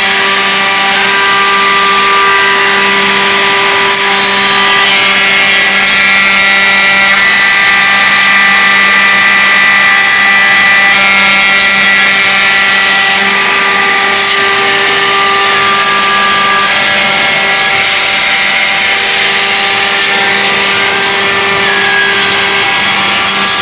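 Edge banding machine running steadily, its motors holding several steady tones over a constant mechanical noise, with a few faint clicks.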